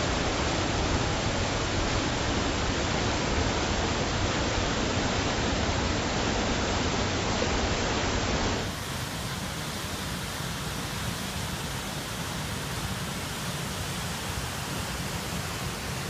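Creek water rushing steadily as it cascades over boulders close by. About eight and a half seconds in, it cuts to a waterfall pouring into a rock gorge, heard from further back and slightly quieter.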